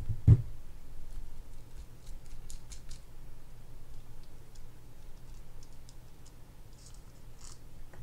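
Light clicks and taps of a spinning reel being handled and taken apart by hand, with one dull thump about a third of a second in.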